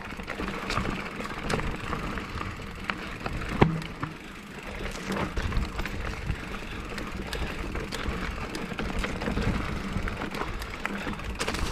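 Mountain bike ridden fast over a dirt trail: steady rolling tyre noise with frequent rattling clicks and knocks from the bike, and one sharper knock about three and a half seconds in.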